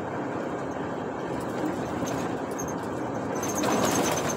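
Steady engine and road noise inside a truck cab while driving. About three seconds in it grows louder, and short high squeaks come in.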